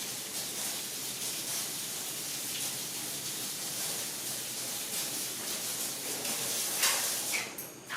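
Water running steadily from a tap, a constant hiss and splash, that tails off near the end.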